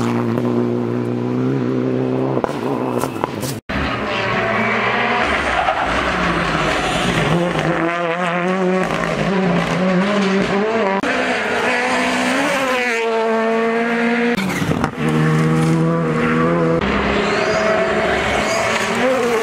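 Rally cars at full speed on a stage, their engines revving high and dropping again and again through gear changes and braking. The sound breaks off abruptly twice as one passing car gives way to the next.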